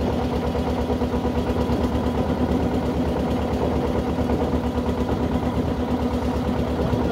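Inboard engine of a wooden motor boat running steadily with a fast, even pulse as the boat moves along the creek.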